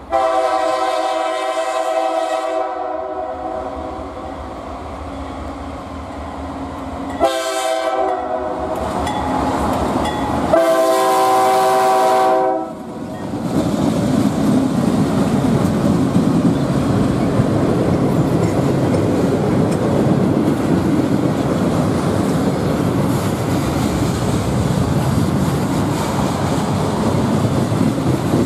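CSX diesel locomotive's multi-note air horn sounding a long blast, a short one and another long one for a road crossing. The locomotives and double-stack container cars then roll past close by, with steady wheel noise on the rails.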